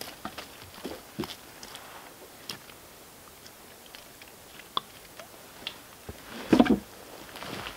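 Used deep-fryer oil poured from a plastic jug onto bait in a barrel: quiet, with scattered small clicks and crackles, and a louder rustling knock near the end as the jug is lifted away.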